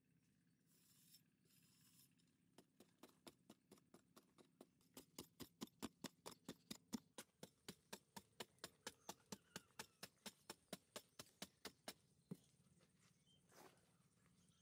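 A machete blade chopping into hard-packed dirt to dig out a small hole: a long, even run of short sharp strikes, about four a second, that stops near the end. A brief scrape of soil comes just before the strikes begin.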